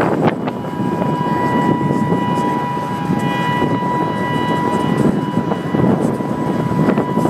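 Tsunami warning siren sounding one steady, unwavering tone, heard from a moving car over wind and road noise.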